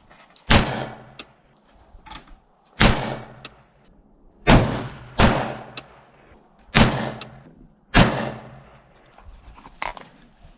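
Six shots from a WS MCR semi-automatic rifle in .223/5.56 fired at an uneven pace, one to two seconds apart. Each is a sharp crack with a short echoing tail. They are a sighting-in string fired after adjusting the red dot.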